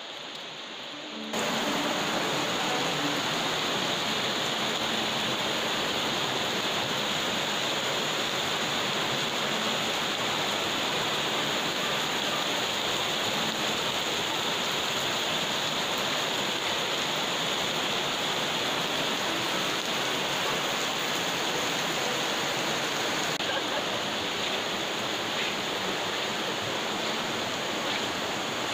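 Steady rushing of water falling and running over rocks, starting suddenly about a second in.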